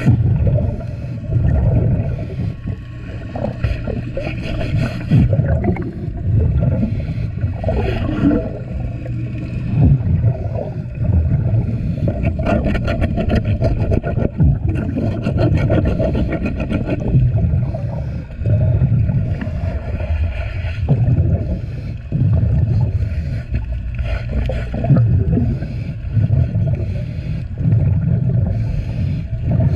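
Underwater scrubbing and scraping of a boat's hull and perforated intake grate with a fibrous pad, heard through the water along with the diver's exhaled bubbles, which swell up every two to three seconds.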